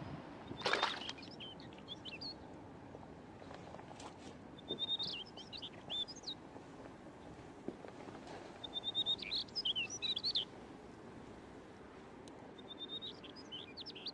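A songbird singing four short, high phrases about four seconds apart, each opening with a quick run of repeated notes and breaking into a jumble of chirps.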